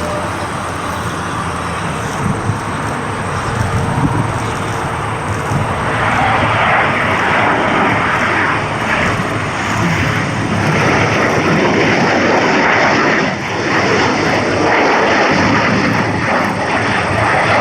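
Aircraft engine noise, a steady rush that grows louder about six seconds in and stays loud as the airplane comes closer.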